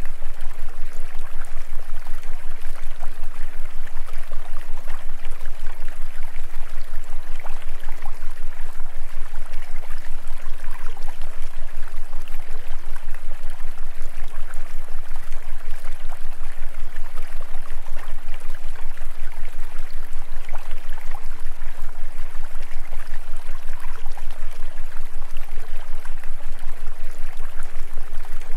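Steady rushing noise of running water, like a stream, with a constant low hum beneath it.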